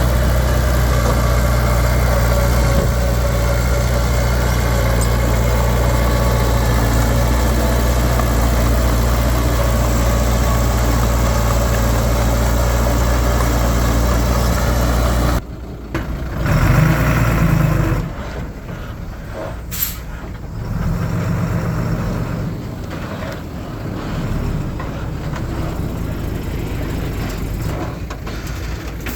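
Heavy diesel engine of earthmoving machinery running steadily. About halfway through it cuts off abruptly, replaced by a quieter, uneven engine sound that swells briefly, with a short sharp hiss a few seconds later.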